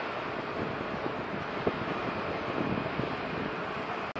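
Steady outdoor background rush with wind buffeting the action camera's microphone, with a few faint knocks. The sound drops out for an instant just before the end.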